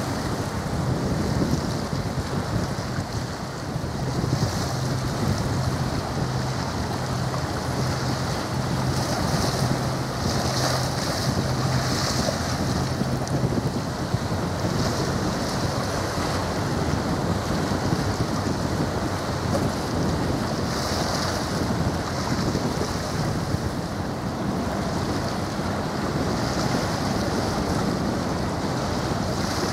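Wind buffeting the microphone over the wash of sea waves, a steady rushing noise that swells and eases. A faint low steady hum runs through the first half, for about ten seconds.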